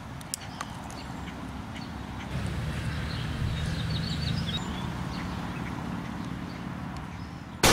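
A faint click as the hammer of a scoped lever-action rifle is thumbed back, then a low, rough background sound, and right at the end a single loud rifle shot with a long echoing tail.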